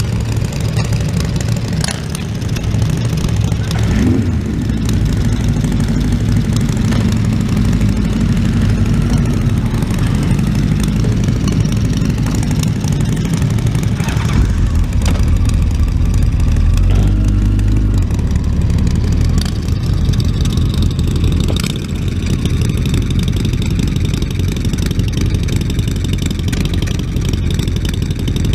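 Motorcycle engines running at idle, with the revs rising about four seconds in and again around seventeen seconds as bikes move off.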